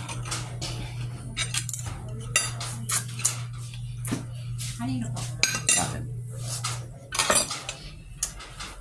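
Metal spoon and fork clinking and scraping on a plate while eating: irregular sharp clinks, at times several a second. Underneath is a steady low hum that fades about seven seconds in.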